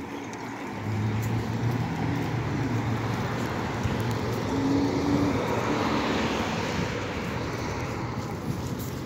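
Street traffic: a low, steady engine hum from road vehicles. A broad rush of a vehicle passing swells about halfway through and then fades.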